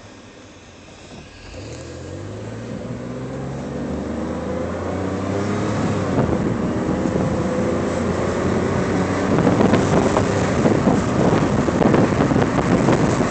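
Car accelerating with its windows down. The engine note climbs from about a second and a half in, and the wind rushing through the open windows keeps getting louder.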